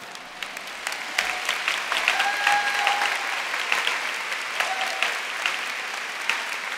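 Large audience applauding. The applause builds over the first two seconds, then holds steady.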